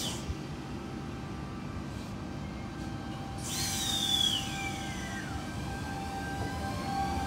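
V set double-deck electric intercity train rolling slowly into a platform. About three and a half seconds in, a high squeal falls steadily in pitch over about two seconds as the train slows.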